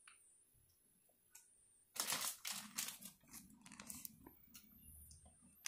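Plastic Fini gummy candy bag crinkling as it is handled; quiet at first, then an irregular run of crackles starting about two seconds in.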